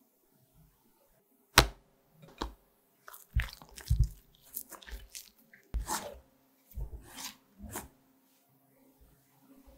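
A sharp knock, then wet squelches and scrapes at irregular intervals as a silicone spatula and a wire whisk fold whipped egg-white meringue into chocolate batter in a glass bowl.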